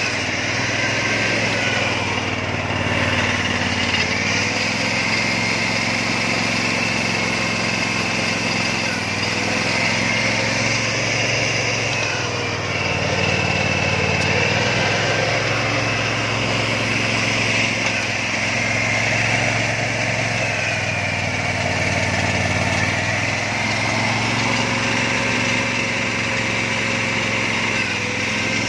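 Small petrol engine of a Stanley hydraulic power pack running steadily and driving the hydraulic circuit of a Platipus anchor driving tool, its pitch shifting slightly every few seconds.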